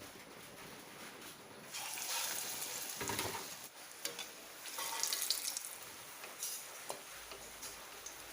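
Coated potato chops (aloo chop) sizzling as they deep-fry in hot mustard oil. The hiss grows louder about two seconds in, with a few light clicks.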